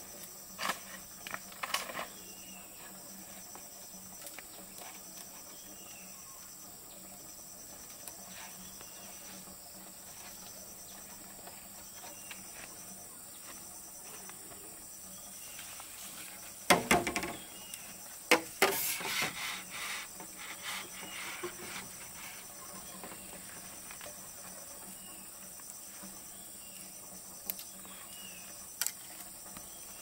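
Steady high-pitched insect chorus, with a few knocks and rustles of handling breaking in, the loudest cluster a little past halfway.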